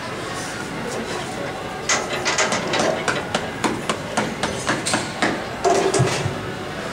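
A rapid series of gloved punches landing on a man's abdomen, about four blows a second. They start about two seconds in and stop about six seconds in.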